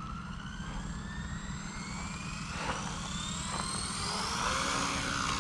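Blade Fusion 180 electric RC helicopter spooling up: the motor and rotor whine rises steadily in pitch and grows slowly louder as the head speeds up.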